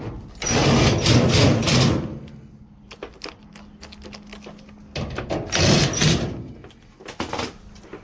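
Work noise from reassembling a dryer: two loud, noisy bursts of about a second and a half each, with light clicks and knocks between them.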